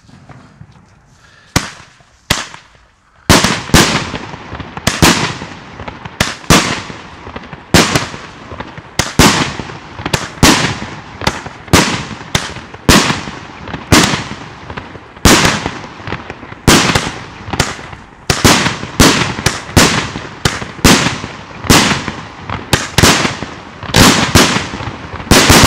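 Aerial fireworks going off in rapid succession: two small pops, then from about three seconds in a long run of more than twenty loud bangs, one every half second to second, each trailing off in an echo.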